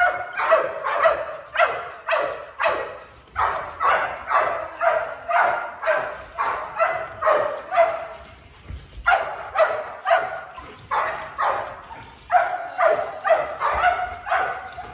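Two Belgian Malinois barking hard and fast, about two or three barks a second, with a short break a little past halfway. These are warning barks at a decoy, conditioned in protection training.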